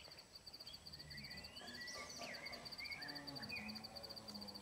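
Countryside ambience: an insect keeps up a rapid, steady pulsing chirp, while birds give short rising and falling calls about one to three seconds in.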